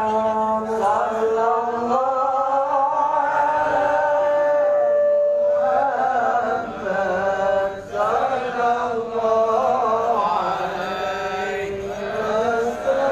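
Men's voices chanting an Arabic sholawat in long held, wavering notes: the standing hymn sung at the qiyam of a Maulid recitation.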